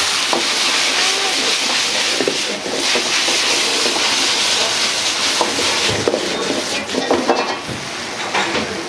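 Noodles and vegetables sizzling in a wok over a high gas flame as a ladle stirs and tosses them, with scrapes and clacks of the metal ladle against the wok, most of them in the second half.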